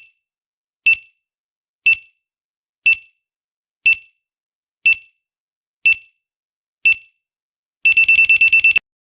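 Quiz countdown timer beeping once a second with short, high electronic beeps, then a fast run of about nine beeps near the end, signalling that time is up.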